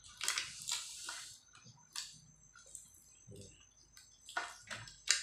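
Charred grilled field rat being torn apart by hand: irregular crackles and snaps as the dry skin and meat are pulled off around a front leg.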